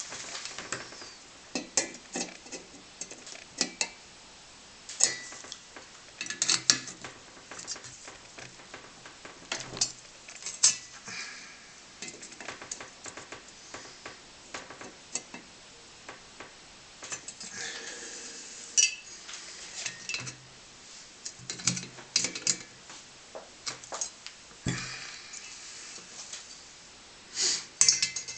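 Brass parts of an Optimus No 415 blowtorch clinking and tapping together at irregular intervals as they are handled and reassembled, some knocks leaving a short metallic ring.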